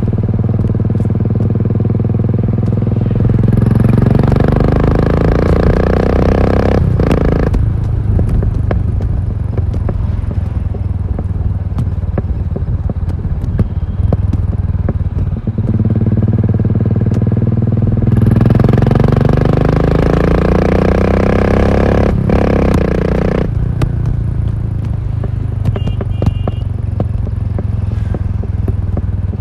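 Royal Enfield Continental GT 535's single-cylinder engine through an aftermarket exhaust, ridden hard: the revs climb twice as it accelerates, each climb ending in a sudden drop as the throttle shuts, with steadier running between.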